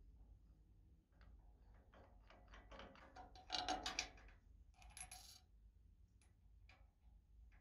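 Metal parts of a Morso mitre guillotine being handled: a run of small clicks and taps, then a louder metallic clatter that rings briefly about three and a half seconds in, and another ringing clink around five seconds, as the cast-iron fence is set onto its mounting stud.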